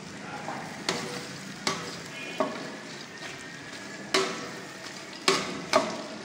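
A long metal ladle stirring beef in a large metal pot over a wood fire, knocking and scraping against the pot about six times, with a brief metallic ring after some strikes, over the steady sizzle of the cooking meat.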